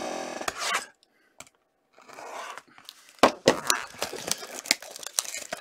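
Plastic shrink-wrap being torn and crinkled off a sealed box of hockey cards, with scattered sharp crackles and clicks in the second half.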